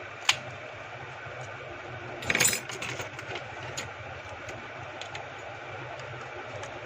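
Small clicks and a brief scrape of tools and plastic and metal phone parts as a component is removed from a smartphone during disassembly: one sharp click just after the start, then a short clatter a little past two seconds in, over a steady low hum.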